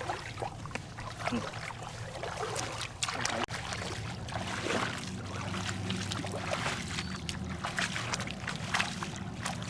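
Water splashing and trickling in short irregular bursts, over a steady low hum.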